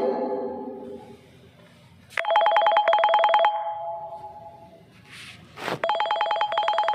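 Phone ringing with a classic telephone-bell ringtone: a fast trill in bursts of about a second and a half, with pauses between. The tail of one ring fades at the start, then come two full rings, with a rustle and knock of handling just before the second.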